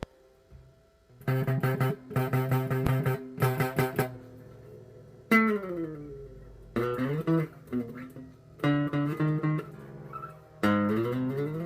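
Bass guitar played for odd effects: after a second of quiet, quick bursts of rapidly repeated plucked notes, then notes that slide down in pitch, and one that slides up near the end.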